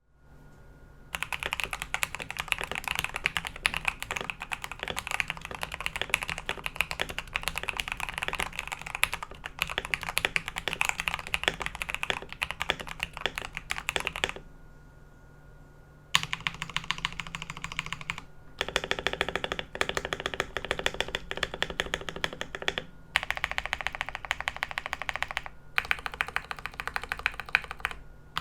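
Royal Kludge RK100 mechanical keyboard being typed on rapidly: a dense stream of key clacks, with a pause of about two seconds near the middle and a few brief breaks later. The keyboard has lubed RK switches and stabilizers, with PE foam, a two-layer tape mod and polyfill inside the case.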